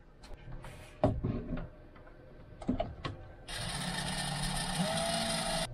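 Cordless DeWalt drill driving a screw: the motor runs steadily for about two seconds, its pitch rising slightly near the end, then cuts off suddenly. Before it, a few light clicks and knocks.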